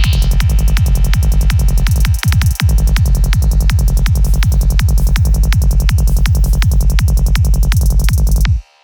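Dark psytrance music at 164 BPM: a driving kick drum and rolling bassline in a fast, even pattern, with a brief break a little after two seconds. The whole mix cuts out abruptly near the end.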